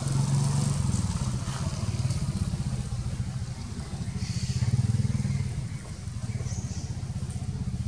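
A small engine running steadily with a low, pulsing hum, getting a little louder about halfway through.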